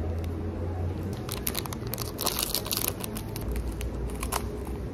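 Plastic wrappers of small individually wrapped sweets crinkling and tearing as they are opened, a dense run of crinkles in the middle and a few more near the end, over a low steady hum.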